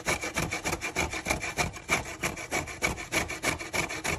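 Peeled raw cassava being grated by hand on a stainless steel box grater: quick, even rasping strokes, about three a second.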